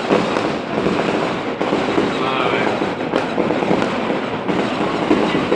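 Fireworks going off in a dense, continuous crackle of rapid bangs.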